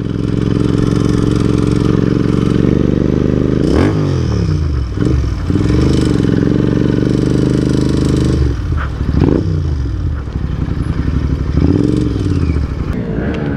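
Motorcycle engines running, the pitch dipping and rising several times as the revs change.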